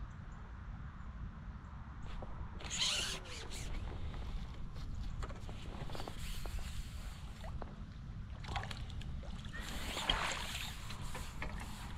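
Handling noise while landing a small fish on the pole: rustling and knocking with light splashing as a landing net is dipped into the water, in several short bursts over a steady low rumble.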